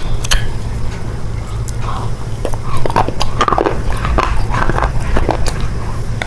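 Chocolate being bitten and chewed close to the microphone: a run of sharp cracks and crunches, busiest in the middle, over a steady low hum.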